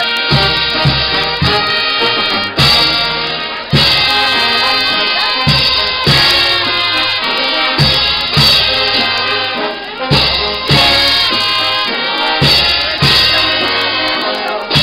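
Street brass band playing, brass and woodwind holding the melody over a drum beat.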